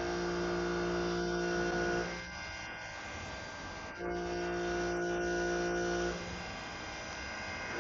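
CNC lathe running a turning cycle: a steady electric motor hum comes on for about two seconds, stops for about two, comes on again, then stops once more. Faint light ticks sound in the gaps.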